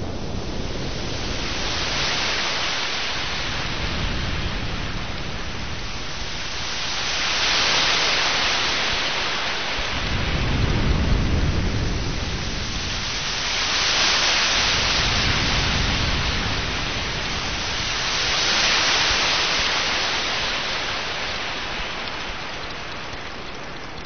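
Sea waves surging and washing back, swelling and fading about every five seconds, with a deeper rumble from one larger wave near the middle.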